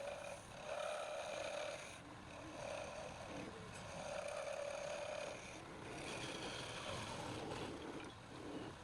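Wood lathe running while a turning tool cuts the spinning workpiece, the cutting noise swelling and fading every second or two.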